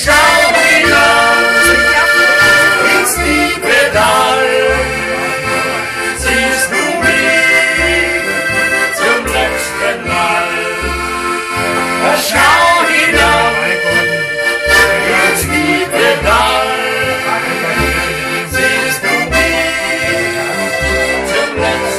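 Live Austrian folk music: a diatonic button accordion (Steirische Harmonika) plays the tune over a steady low beat, with clarinet and a Bumbass.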